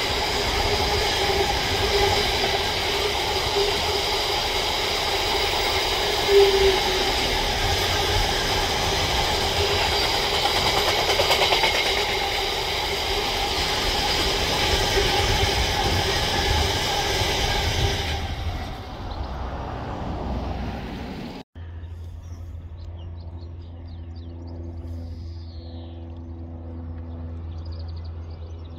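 Container freight train's wagons rolling past on jointed track: a steady rumble of wheels on rail with a continuous high whine over it, fading away about 18 seconds in. After a cut near the 21-second mark, a quieter steady low hum.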